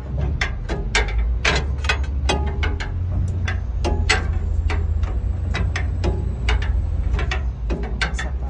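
Large natural gas generator engine running steadily with a deep rumble, overlaid by sharp ticks about three to four times a second.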